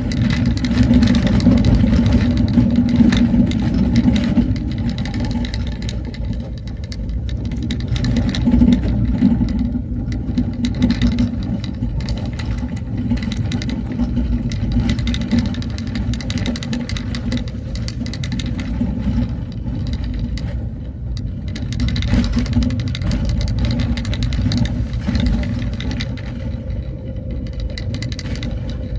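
Vehicle engine running steadily while driving, with frequent short knocks and rattles over the rumble.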